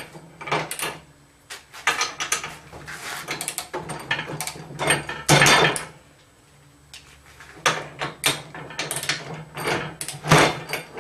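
Stretch Devices click-type torque wrench ratcheting as the bolts of a roller frame's corners are tightened, in quick runs of sharp metal clicks, with a pause of about a second and a half past the middle.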